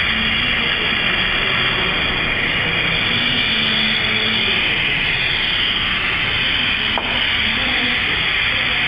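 Glassworking bench torch flame hissing steadily while glass is worked in it, with one small click about seven seconds in.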